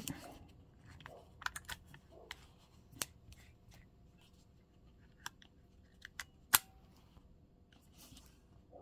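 Scattered sharp metallic clicks of a Taurus 605 revolver being handled as its cylinder is swung out and latched shut again; the loudest click comes about six and a half seconds in.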